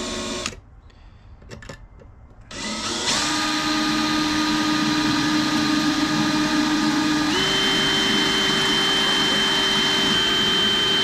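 Cordless drill boring a pilot hole into a hardened-steel table saw blade. A brief run at the start, a short pause, then the drill runs steadily with a whine whose pitch steps up about seven seconds in.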